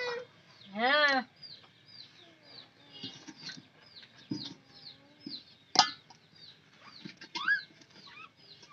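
Chickens: a steady run of small, high, falling peeps, with a louder pitched call about a second in and a short rising call near the end. A single sharp click comes about six seconds in.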